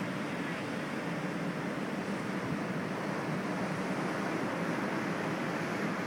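Ocean surf breaking continuously on a sandy beach: a steady wash of noise with no single wave standing out.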